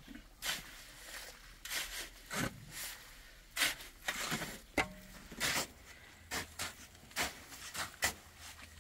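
Irregular short scrapes and knocks, roughly one or two a second.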